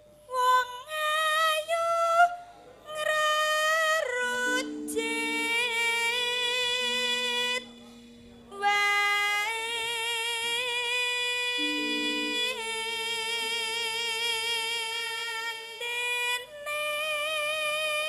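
A sinden, a female Javanese gamelan singer, singing into a microphone in long held notes with a wide, wavering vibrato, in several phrases broken by short pauses. Quiet, steady instrumental notes sound beneath her voice.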